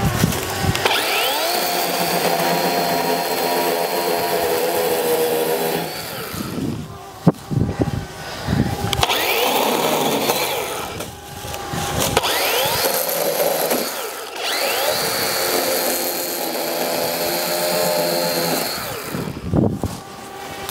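Cordless chainsaw cutting through vines and brush, run in three stretches. Each stretch starts with a rising whine as the motor spins up, then holds a steady pitch. A sharp knock comes between the first and second stretches.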